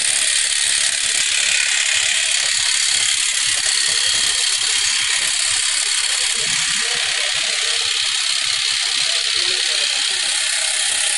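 Automatic tyre inflation test rig running: a steady, loud hiss as the wheel spins with the compressed-air line fed through its hub coupling.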